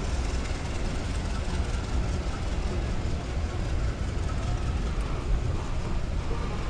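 Diesel-hauled passenger train running on departure, a steady low rumble.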